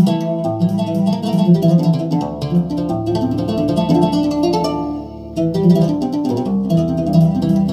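Korg Nautilus keyboard playing a sampled plucked-string voice: a quick melodic line of notes over held low bass notes, with a brief lull about five seconds in.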